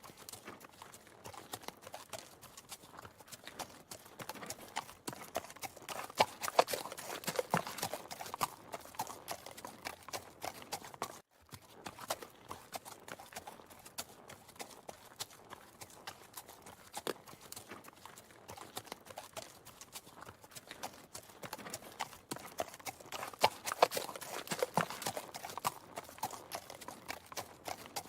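Horse hooves clip-clopping in a long run of hoofbeats, growing louder about seven seconds in and again near the end, with a brief break about eleven seconds in.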